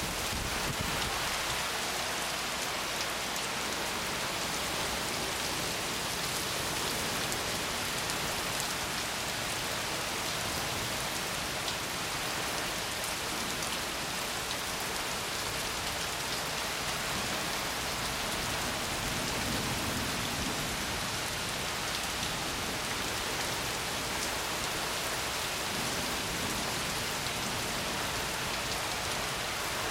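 Rain falling in a thunderstorm, a steady hiss.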